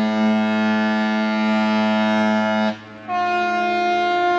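Ship's horn blasts: a long, steady low-pitched blast cuts off about two and a half seconds in, and after a short gap a higher-pitched horn sounds and holds.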